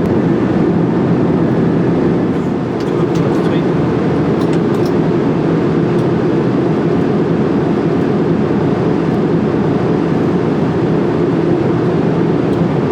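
Steady low rumble inside an Airbus A380-800 cockpit on approach with the landing gear down: airflow and engine noise, with a few faint clicks.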